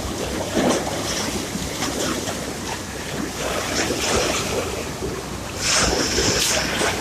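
Sea surf: waves washing in and rolling back with a steady hiss. One wave swells louder about six seconds in.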